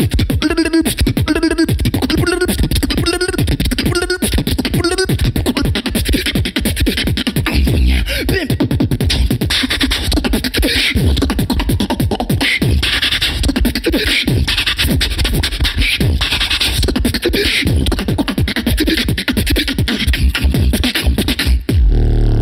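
Human beatboxing into a handheld microphone. First come short pitched vocal bass notes about one and a half a second, then fast, dense drum patterns over a deep bass line. Just before the end it breaks into a sustained low growl.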